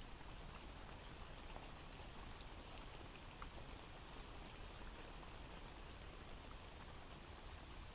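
Faint recorded rain ambience: a steady hiss of rainfall with scattered small drop ticks.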